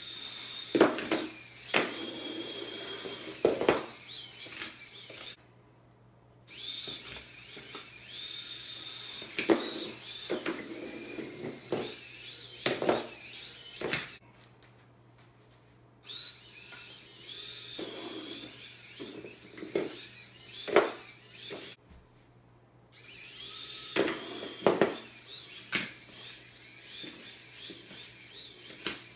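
Small tracked sumo robot's electric drive motors whining in bursts as it spins, charges and pushes, with sharp clicks and knocks throughout. The motors stop three times for one to two seconds, leaving near silence.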